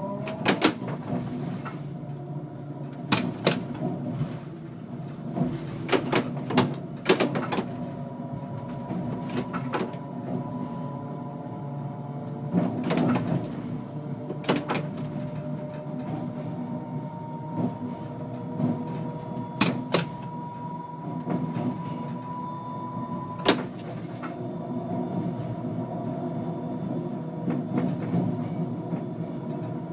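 NMBS AM62 electric multiple unit running, heard from its cab: a steady rumble of wheels on rail with a steady motor whine, one tone creeping up in pitch for several seconds in the second half. Sharp knocks from the wheels over rail joints and points come at irregular intervals, a dozen or so in all.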